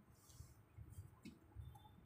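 Near silence with a few faint soft bumps and light ticks, from a kitten and a cat scuffling on a wooden tabletop.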